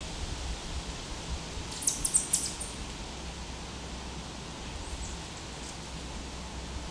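A bird's quick run of high chirps about two seconds in, with a few fainter chirps a few seconds later, over a steady background hiss and low rumble.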